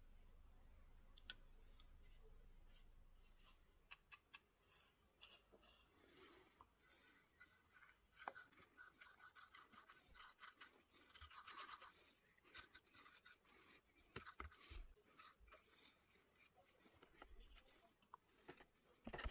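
Bristles of a paintbrush stroking and scratching across a turned wooden goblet as liquid finish is brushed on, with scattered light clicks. Short strokes come in quick succession, with one longer stroke about two thirds of the way through.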